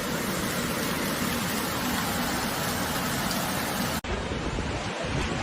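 Steady rushing noise of a storm: rain and wind, with a hard cut about four seconds in to another clip.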